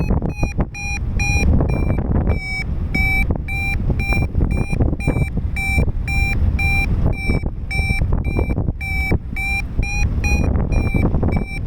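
Paragliding variometer beeping in a quick, regular series with small shifts in pitch, the climb tone that signals the glider is rising in lift, over wind rushing on the microphone.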